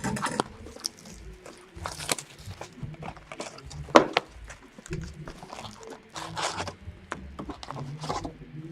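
A box of 2016/17 Upper Deck Series 2 hockey cards being cut and torn open: crinkling and tearing of wrapping and foil packs, with scattered clicks and one sharp knock about four seconds in.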